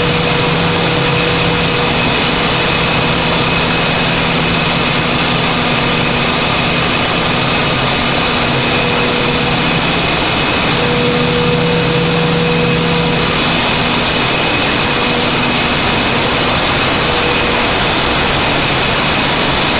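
Compressed-air machinery running steadily: a loud, even rush of noise with a steady hum and high whine, some of the humming tones fading out and coming back about halfway through.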